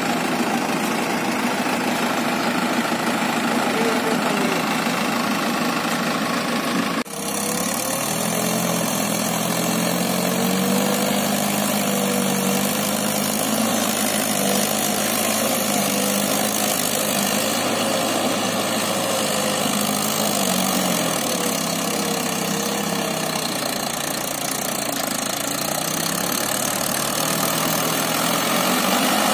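Mahindra 585 DI tractor's four-cylinder diesel engine running steadily as the tractor labours through deep, wet paddy mud, its engine speed rising and falling slightly. About seven seconds in the sound breaks off for an instant and picks up again.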